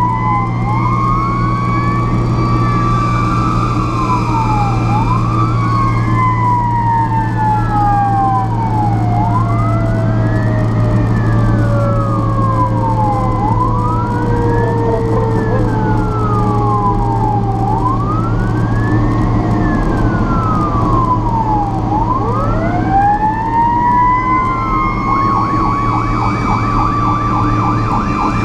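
Fire truck sirens heard while riding along in the apparatus. An electronic siren wails up and down about every four seconds. A second siren winds down slowly over more than ten seconds and winds back up a little after twenty seconds in, all over the steady drone of the truck's engine. A fast warble joins in near the end.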